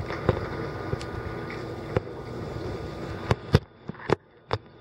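Fireworks going off in a scattered series of sharp bangs, several coming close together in the last second and a half, over a steady low rumble.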